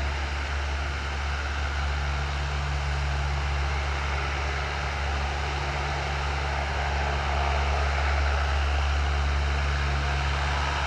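C-130H Hercules' four Allison T56 turboprop engines running on the ground: a steady low drone with a deep propeller hum, swelling slightly about eight seconds in.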